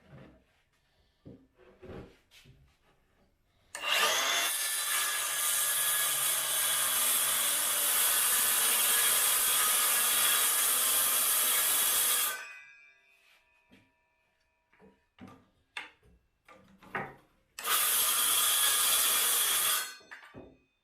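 A power saw cutting wood: one long cut of about eight seconds, then a short cut of about two seconds near the end, with light knocks and handling between.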